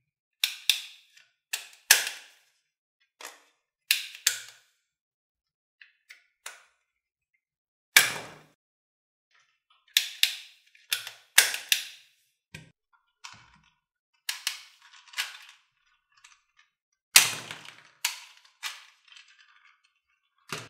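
Plastic toy guns being cocked and fired: sharp plastic clicks and snaps at irregular intervals, often in quick pairs, a few of them louder with a dull thud.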